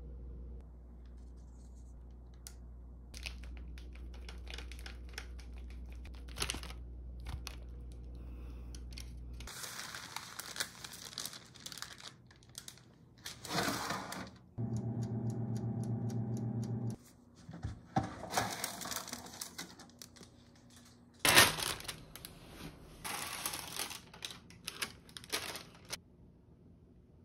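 Baking paper crinkling and rustling as bagel pizzas are handled and slid on it into a small countertop oven, with scattered clicks. A steady buzzing hum lasts about two seconds halfway through, and a sharp knock comes about two-thirds of the way in.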